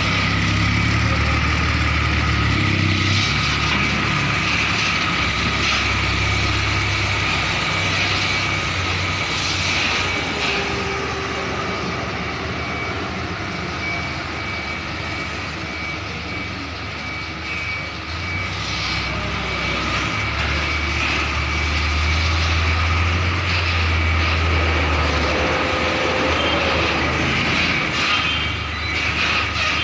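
Diesel engine of a container tractor-trailer truck running as it manoeuvres slowly, with a steady high tone over the engine. The low engine note swells louder at the start and again for a few seconds about twenty seconds in.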